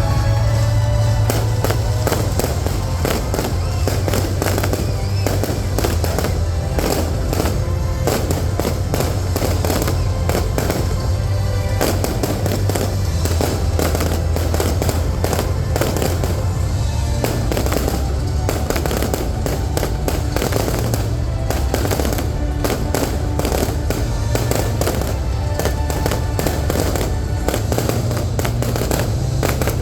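Fireworks display: a dense, continuous run of bangs and crackles, with music playing underneath.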